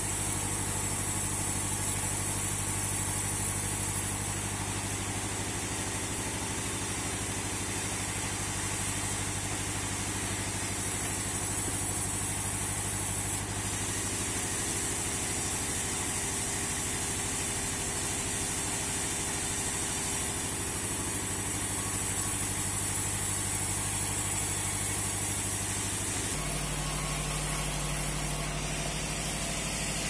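Bandsaw mill running steadily, a low even mechanical hum. The hum changes abruptly to a different steady tone near the end.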